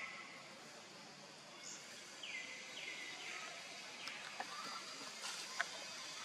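Bird calls in forest: a run of short downward-sweeping whistles about half a second apart, starting about two seconds in, over a faint steady background, with a single sharp tick near the end.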